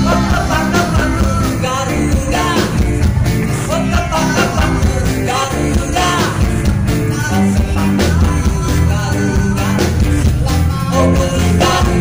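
Live band playing pop-rock on electric guitars, bass and drum kit, with a male voice singing.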